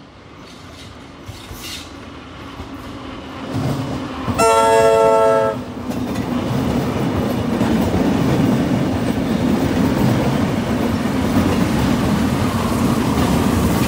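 Train passing close by: the rumble of the heritage Tait carriages and K-class steam locomotive K153 builds up, and a train whistle blows once for about a second around four seconds in. The wheels then rumble and clatter steadily as the carriages go by.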